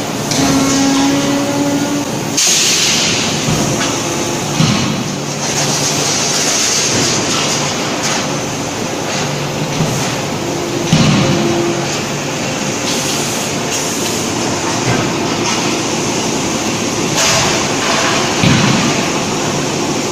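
Forging-shop press machinery running: a steady, loud mechanical din with a few heavy knocks spread through it and short humming tones, one near the start and one about halfway through.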